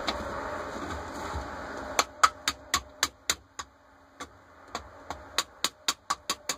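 Quick light hammer taps on the Rochester Quadrajet carburetor's metal body, about four a second. They start about two seconds in and pause briefly near the middle.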